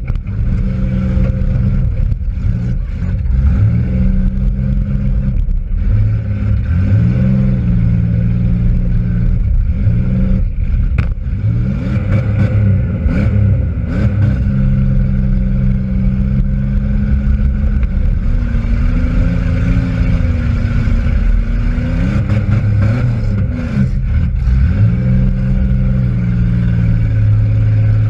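Demolition derby car's engine heard from inside the cabin, revving up and falling back again and again as the car is driven hard. A few sharp bangs cut through, the clearest about 11 seconds in.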